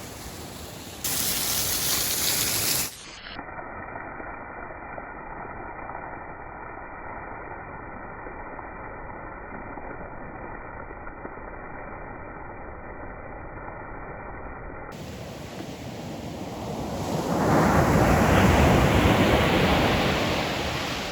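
Rushing ocean surf: a steady wash of waves, with a short loud burst of noise about a second in and a wave surging up loud near the end before easing off.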